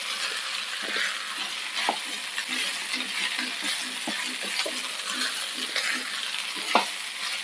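Wooden spatula stirring and scraping potato and green bean pieces around a nonstick frying pan, with scattered knocks against the pan, over a steady sizzle as the vegetables fry dry near the end of cooking.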